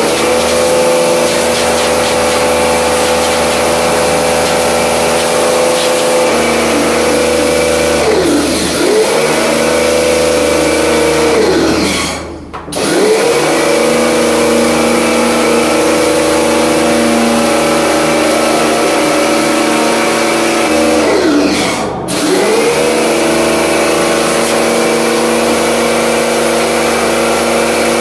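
Bosch electric pressure washer running under load as it jets water over an air conditioner's outdoor unit, a steady motor hum with water spray. Three times the motor winds down and comes straight back up, most deeply about twelve and twenty-two seconds in, as the spray trigger is let go and squeezed again.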